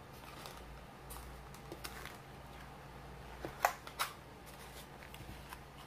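Plastic food containers being picked up and set down on a table, giving a few light clicks and knocks, the loudest two close together a little past the middle, over a faint steady hum.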